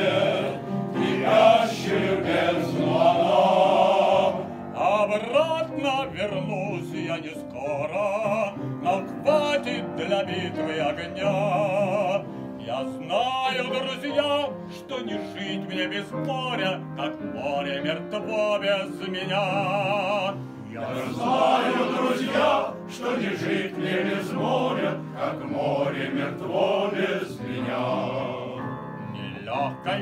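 A male soloist singing with a wide vibrato, a men's choir singing behind him.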